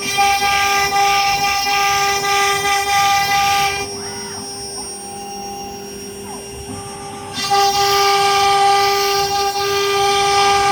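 AKM2040 CNC wood router running with a steady high whine from its spindle. The sound turns louder and harsher for the first few seconds, drops back, then swells again from about seven seconds in.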